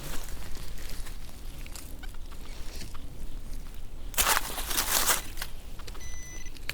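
Rustling and scraping in forest soil and leaf litter, loudest in a burst of about a second midway. Near the end a steady electronic tone from an XP Deus metal detector comes in.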